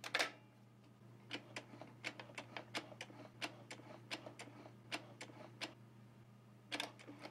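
Sewing machine mechanism clicking as the needle is cycled up and down over the throat plate, a check that it no longer hits the metal. A sharp click just after the start, then a run of irregular clicks a few a second, and another short cluster near the end.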